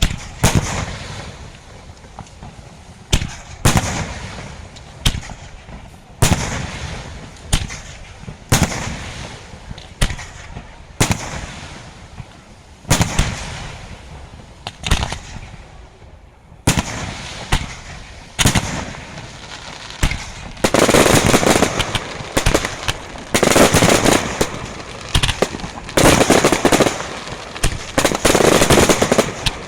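Fireworks display: single aerial shell bursts, each a sharp bang trailing off, about one every second or so, then about two-thirds through giving way to dense volleys of rapid crackling reports in three long clusters.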